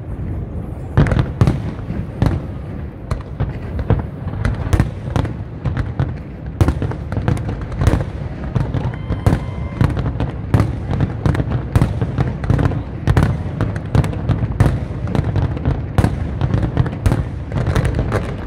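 Fireworks display: a dense, continuous barrage of aerial shells bursting, many bangs a second over a low rumble, picking up sharply about a second in.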